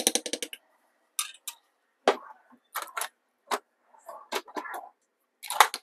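Metal spoon and utensils clinking against a stainless steel saucepan: a quick cluster of taps at the start, then single sharp clicks and taps spread irregularly, with short silences between.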